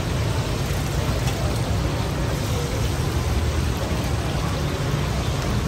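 Chapli kababs sizzling as they fry in a wide, shallow pan of hot oil, a steady hiss, over a steady low rumble.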